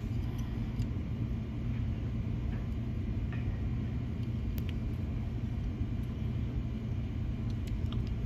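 Steady low background rumble, with a few faint light clicks as a small diecast car is handled in the fingers.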